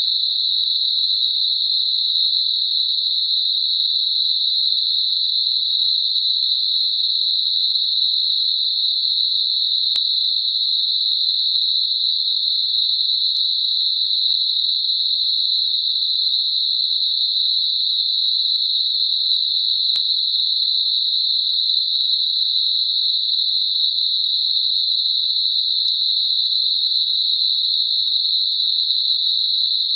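Synthetic Gaussian narrow-band noise centred at 4 kHz, made as a tinnitus masker: a steady, even, high-pitched hiss with nothing lower or higher in it.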